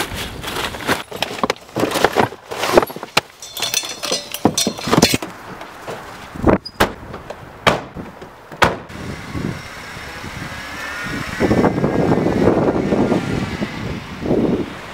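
Gear being loaded into a car's trunk: a run of knocks and thuds, with a few sharp slams near the middle, like a trunk lid and car door shutting. After that a car engine runs and the car pulls away, louder for a couple of seconds before easing off near the end.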